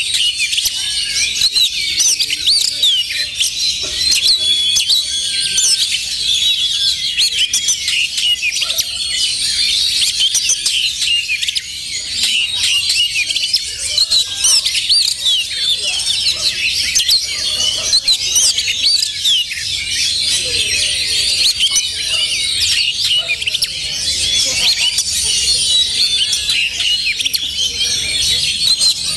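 Oriental magpie-robins singing, many birds at once: a dense, unbroken chorus of overlapping rapid whistles, chirps and trills.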